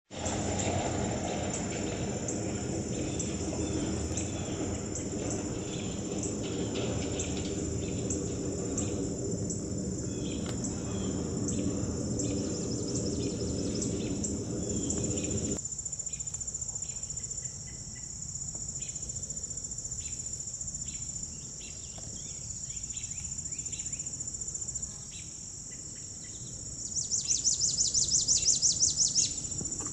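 Summer insects keep up a steady high buzzing and ticking, with scattered bird chirps. A low rumble underlies the first half and stops suddenly about halfway. Near the end a louder, rapidly pulsing insect trill rises for about two seconds.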